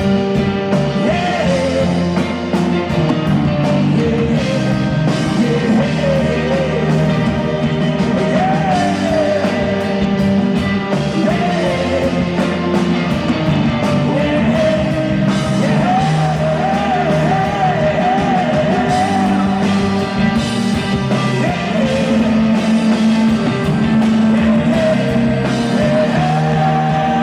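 Live band playing a rock song loudly, with a wavering melody line over steady sustained chords.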